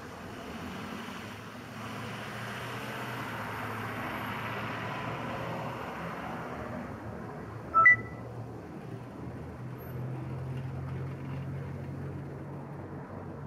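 Traffic on a snow-covered street: cars driving past and idling at an intersection, with a steady low engine hum under the tyre hiss. A single short, loud beep sounds just under eight seconds in.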